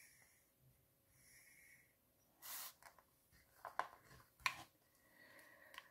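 Quiet drawing sounds: faint scratching of a pencil on paper, a short rustle, then a few sharp clicks and taps as a plastic set square is moved and set down on the paper.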